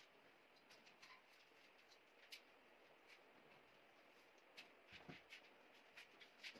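Near silence: room tone with a few faint, irregular clicks and a soft knock about five seconds in.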